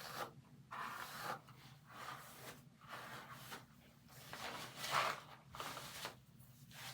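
Hairbrush strokes through hair: a run of brushing swishes, about one a second, the loudest about five seconds in.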